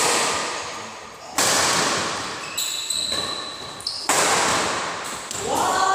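Badminton rackets striking the shuttlecock during a doubles rally: three sharp hits, about a second apart and four seconds in, each ringing out in the echo of a large hall. A player's voice is heard briefly near the end.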